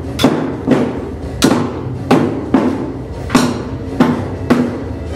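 Chinese barrel drums (tanggu) struck in a steady beat, about nine strokes, roughly two a second, each a sharp boom with a short ring.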